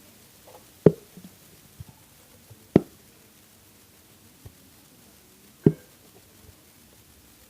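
Three sharp knocks, a couple of seconds apart, from the glue bottle and bowl being handled while white glue is poured in for slime.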